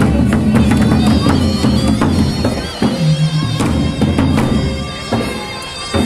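Traditional parade music from a marching drum troupe: barrel drums beaten in a driving rhythm under a shrill, reedy wind instrument holding long notes.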